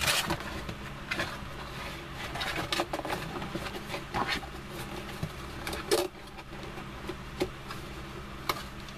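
A cardboard box being handled and folded: continuous rustling and scraping of card with many small taps and creases, and a sharper snap about six seconds in.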